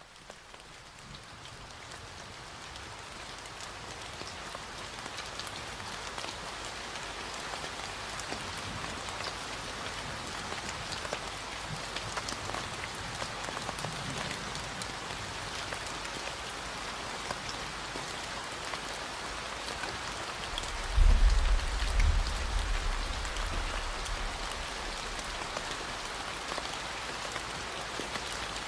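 Steady rain falling on a surface with scattered drop hits, fading in over the first few seconds. A deep low rumble swells briefly about three-quarters of the way through.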